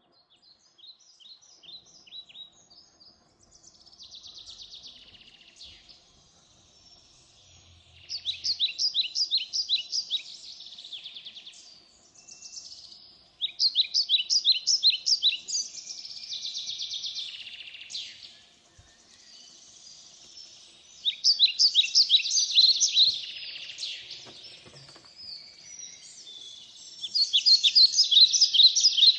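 A songbird singing a repeated song: each phrase is a quick run of sharp, high notes, about eight a second, followed by a buzzy trill, repeated roughly every six seconds. The first couple of phrases are faint; the later ones are louder.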